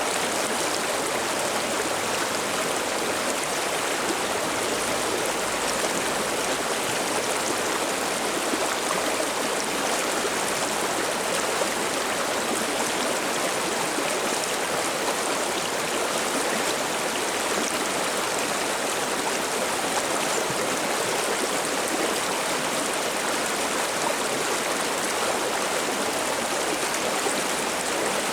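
A shallow river babbling and splashing steadily over rocks, an even rushing hiss with no change in level.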